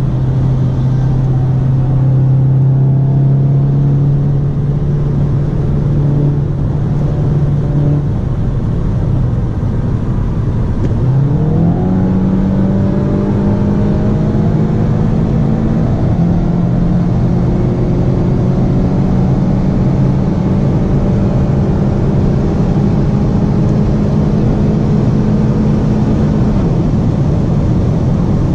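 SEAT Leon engine heard from inside the cabin during a high-speed motorway run. It drones steadily at first. About eleven seconds in, the revs jump up on a downshift, and the pitch then climbs slowly as the car accelerates past 200 km/h. Near the end an upshift drops the revs. Tyre and wind noise run underneath throughout.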